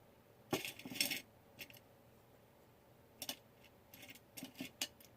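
Small scrapbooking embellishments and their packaging being handled on a desk: a scatter of light clicks, clinks and rustles, a cluster about a second in and more from about three seconds in.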